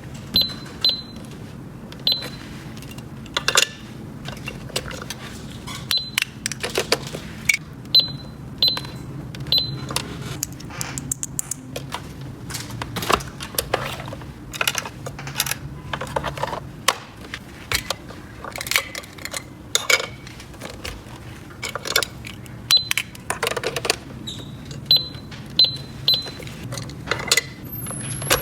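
Small plastic toy pieces being handled: irregular clicks, taps and light clatters, some with a brief high ping, over a steady low hum.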